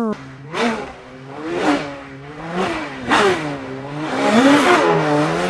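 A person imitating a car engine revving with their mouth: a buzzy, breathy tone that rises and falls in pitch several times, about once a second, louder toward the end.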